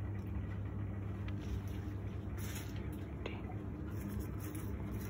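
A steady low electrical hum, with faint rustling of leaves and stems as a hand adjusts the flower arrangement, a little after two seconds in and again near the end.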